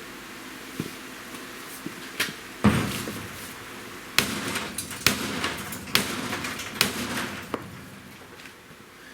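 A big hammer striking the game cart, about half a dozen heavy blows roughly a second apart. The loudest comes early, and each blow is followed by a short rattling ring.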